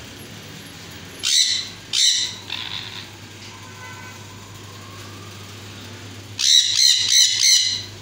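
Sun conures screeching: two loud, harsh calls about a second in, a few softer ones after them, then a rapid run of four or five screeches near the end.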